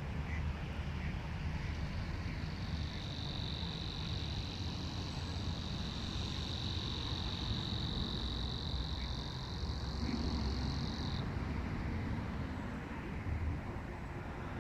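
A cricket singing one continuous high trill that starts about two and a half seconds in and cuts off abruptly near eleven seconds. Under it runs a steady low rumble of road traffic.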